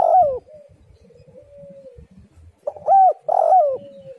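Spotted dove cooing: the tail of one loud phrase right at the start, then a full two-part coo about three seconds in, with a soft drawn-out coo in between.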